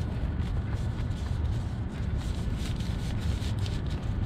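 Wind buffeting the microphone, a steady low rumble, with faint crinkling rustles between about two and four seconds in as a PVA bag is handled.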